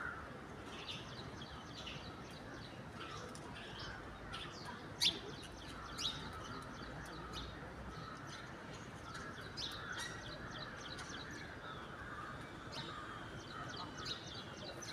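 Small birds chirping: many short, high calls scattered throughout, one sharper and louder about five seconds in, over faint outdoor background noise.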